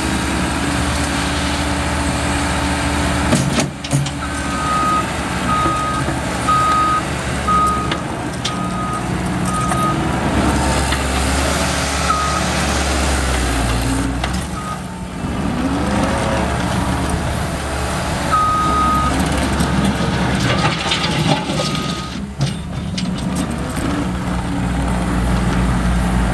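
Case 430 skid steer's diesel engine running, its speed rising and falling as the machine works. Over it the backup alarm sounds a run of short, evenly spaced beeps, then a few more beeps later on as it reverses.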